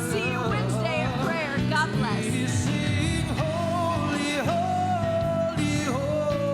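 Closing worship music: a sung melody over band accompaniment, with a long held note about halfway through.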